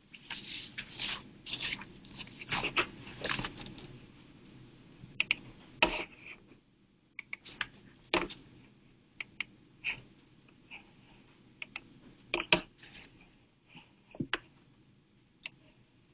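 Irregular small clicks and short rustling handling noises, scattered unevenly with gaps between them.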